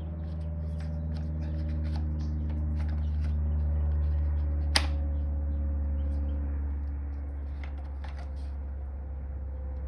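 Plastic pressure-washer spray wand and trigger gun being handled and fitted together: faint rustles and small clicks, with one sharp click about five seconds in, over a steady low hum.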